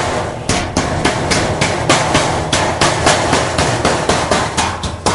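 Hammer blows on galvanized sheet-metal ductwork, a steady run of sharp metallic strikes about three a second, each ringing briefly.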